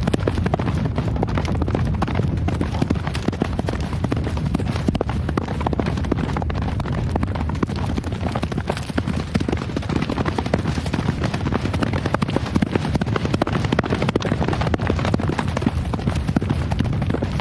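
Horse hooves galloping in a dense, continuous clatter of hoofbeats with a heavy low thud.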